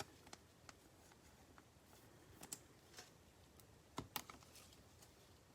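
Faint handling of trading cards: a few soft clicks and taps as cards are slid and flipped, the clearest about two and a half and four seconds in, over near silence.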